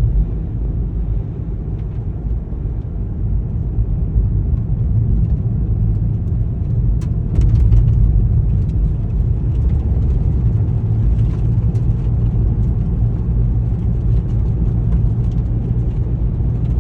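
Wind buffeting the microphone: a steady, uneven low rumble that rises and falls in loudness.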